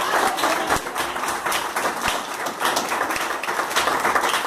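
Church congregation clapping their hands, many irregular claps overlapping into applause.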